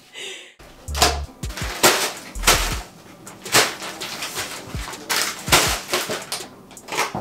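Instrumental hip-hop beat with drum hits about twice a second and deep bass notes near the start, over the rustle of frozen-fruit plastic bags being handled and set down on a counter.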